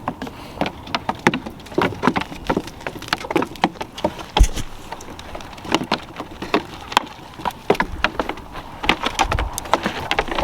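Goats crowding in at feeding time: an irregular clatter of sharp hoof clicks and knocks.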